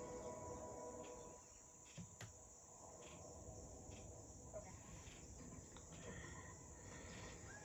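Near silence from a film soundtrack playing quietly on a TV: music fading out in the first second or so, then faint outdoor ambience with insect-like chirping and a couple of soft clicks.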